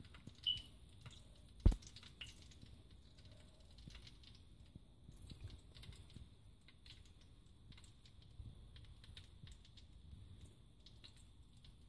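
Faint, scattered clicks and taps, with one sharp, louder click about a second and a half in.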